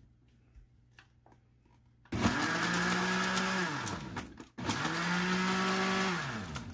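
Countertop blender pulsed twice, blending cooked strawberries with caramel syrup and strawberry juice. About two seconds in the motor starts with a whine and runs steadily for two seconds, then falls in pitch as it spins down. It starts again at once and spins down the same way near the end.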